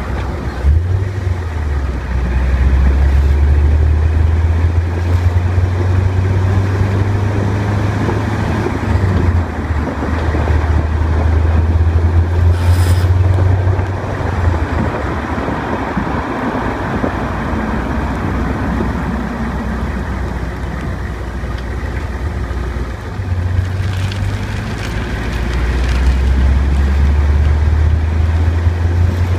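1998 Corvette's LS1 V8 running at around 1200 rpm with a grinding noise. The engine is held at that speed for about fourteen seconds, then the revs fall off and it runs lower. About 23 seconds in it is brought back up to the same speed.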